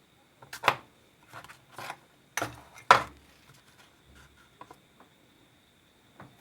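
Scattered clicks and light knocks of a phone battery, its new connector and small tools being handled and set down on a repair bench, the loudest knock about three seconds in.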